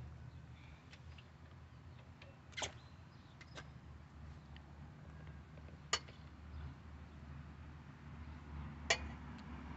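Metal tools or car parts clinking now and then during brake work: a handful of short, sharp clinks spread across the stretch, over a low steady hum.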